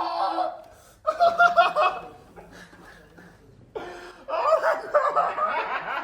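People laughing in short bursts: a burst about a second in, then a longer run of laughter from about four seconds in.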